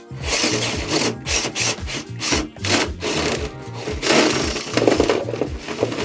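Cordless drill running a hole saw through the boxing board at low speed in short pulses, with a rough grinding rasp that stops and starts several times; the saw's teeth catch on a metal stud behind the board.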